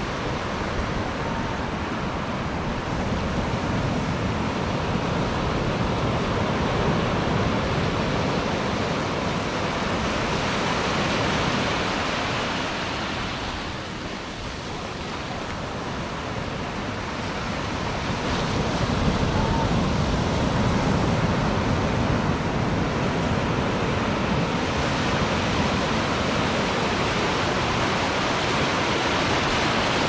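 Ocean surf washing up the sand at the shoreline, a continuous rush of breaking water and foam. It eases about halfway through and builds again as the next wash comes in.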